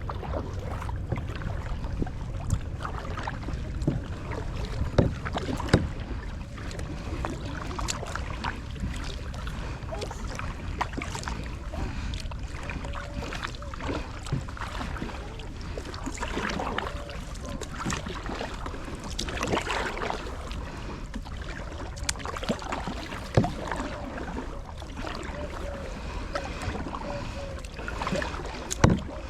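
Kayak paddling: the paddle blades swish and splash through the water, with irregular knocks and clicks, over a steady low rumble of wind on the microphone.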